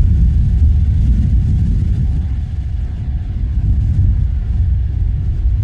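Jet airliner engine rumble mixed with strong wind buffeting the microphone, a loud, gusty low rumble with faint engine tones sliding in pitch, dipping a little about halfway through.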